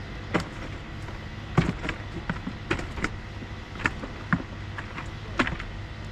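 Irregular knocks and clicks, about a dozen of them, over a steady low hum.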